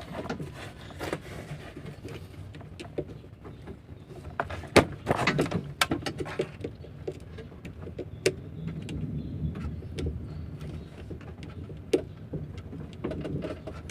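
Scattered clicks, rattles and knocks of hand work on a van's ignition-switch wiring, the loudest about five seconds in, over a steady low hum.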